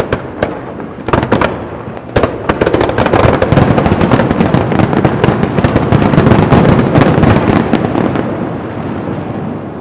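Fireworks going off: a few separate cracks, then about two seconds in a dense, rapid crackle of many small bursts that thins out near the end.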